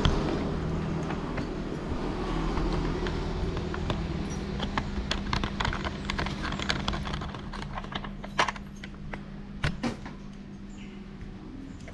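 Motorcycle engine running steadily with a low, even hum that slowly fades, and a few sharp clicks and knocks in the second half.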